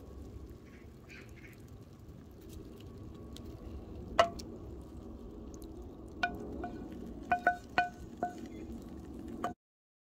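Cooked beans being scraped from a pan into a ceramic baking dish with a wooden spatula. A sharp knock comes about four seconds in, then a run of knocks of the spatula and pan that ring briefly, from about six to eight seconds in.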